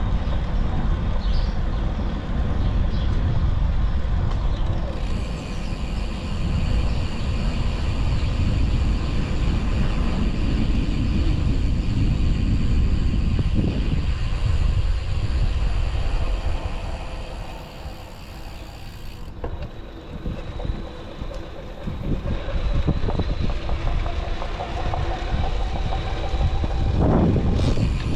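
Riding noise from a Canyon Roadlite:ON 7 e-bike with a Fazua Drive 60 mid-drive motor: steady rumbling wind and road noise on the microphone, with the rattling from the drive that this bike shows. It eases off for a few seconds in the second half, and a short sound falling in pitch passes near the end.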